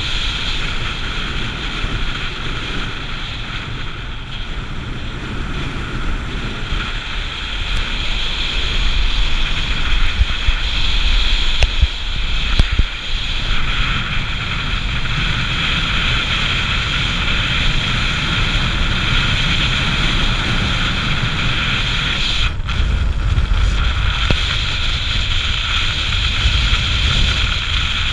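Small motorcycle riding at speed, its engine running steadily under heavy wind buffeting on the bike-mounted camera's microphone. It gets louder for a few seconds partway through and briefly drops about 22 seconds in.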